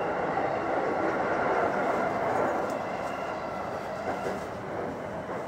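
JR Saikyo Line electric commuter train running into a station, heard from inside the car: steady rolling and running noise that eases a little in the second half as the train slows along the platform.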